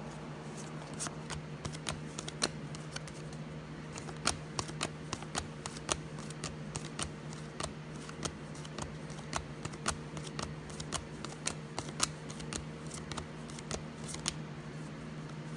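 Donruss football trading cards being flipped one at a time off a stack in the hand, each card giving a light click, about three or four a second at uneven intervals.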